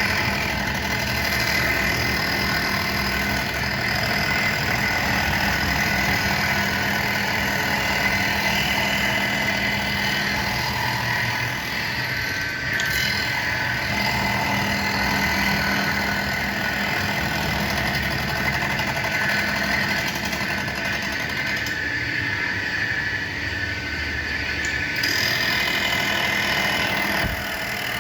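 Blade grinding machine running steadily: a continuous motor hum with a high, even whine, shifting slightly in tone a couple of times.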